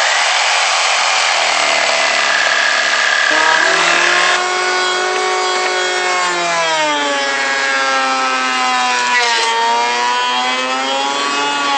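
A reciprocating saw cuts through the deck screws between a joist and the beam. About four seconds in, an electric hand planer takes over, shaving the top of the beam down level with the joists, and its whine dips and recovers as it bites into the wood.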